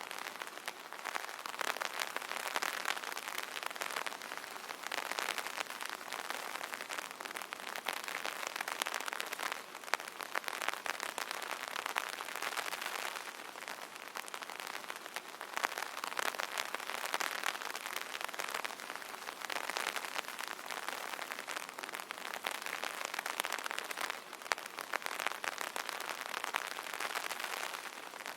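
Steady rain pattering on an umbrella canopy, a dense spray of fine drop ticks that swells and eases every few seconds.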